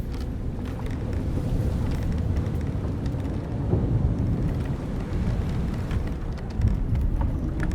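Wind and sea rumbling around an old wooden sailboat, with short creaks and knocks from its timbers and rigging scattered through it.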